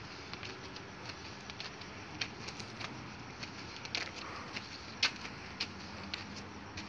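Footsteps on a street: irregular light clicks and scuffs, two or three a second, over a steady hiss, with one sharper click about five seconds in.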